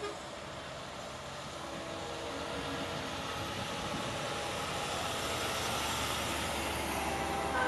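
Diesel semi-truck hauler driving past close by, its engine and tyres getting louder as it nears.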